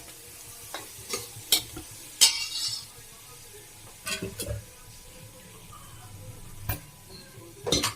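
Spoon stirring and scraping masala in a hot pan, the oil sizzling faintly, with irregular knocks and scrapes of the spoon against the pan.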